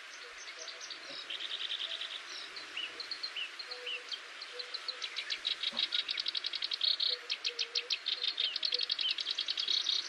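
Nature ambience of birds chirping over fast trills of rapid, evenly spaced notes, about ten a second. The trills grow longer and louder about halfway through.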